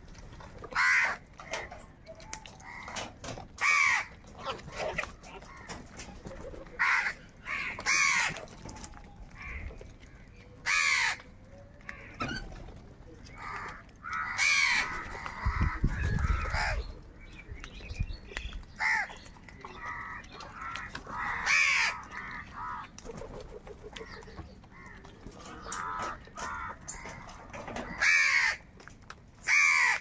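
A flock of house crows cawing: repeated loud caws from several birds, one every second or two.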